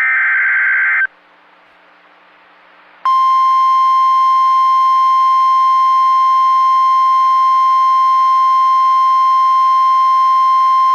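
The tail of an Emergency Alert System SAME header: a harsh, buzzy digital data burst about a second long. After about two seconds of quiet, the NOAA Weather Radio warning alarm tone starts, a single steady 1050 Hz beep that holds to the end, signalling that a warning message is about to be read.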